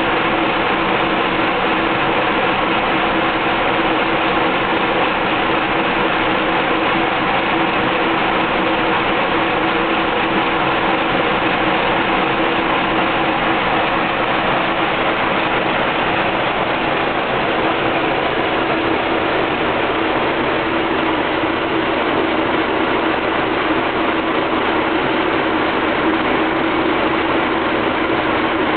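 Car engine idling roughly, running steadily throughout: the rough idle the owner is trying to diagnose.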